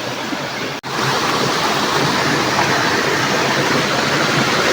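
River water rushing steadily. It cuts out for an instant about a second in, then comes back slightly louder.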